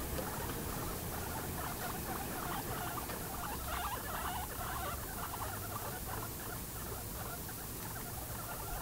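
Guinea pigs feeding at close range: a steady run of quick, short sounds, many a second, without a break.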